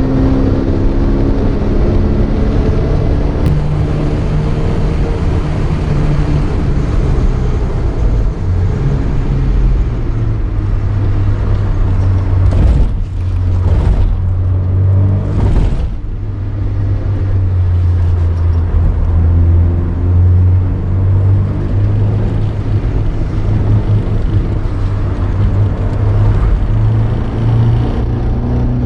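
Porsche 924 race car's 2.0-litre four-cylinder engine heard from inside the cabin while lapping a circuit. The engine note falls over the first few seconds, runs low and steady through the middle with two brief breaks around halfway, and climbs again near the end.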